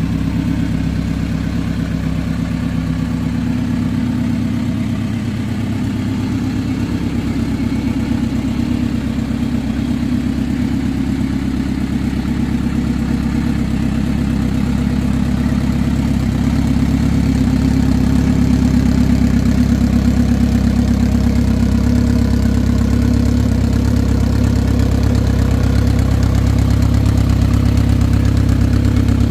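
Kawasaki Z900RS inline-four idling steadily through a Delkevic aftermarket exhaust, getting a little louder from about halfway.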